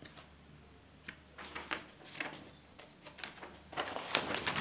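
Sheets of paper being handled: soft rustling and scattered light clicks, busier and louder near the end.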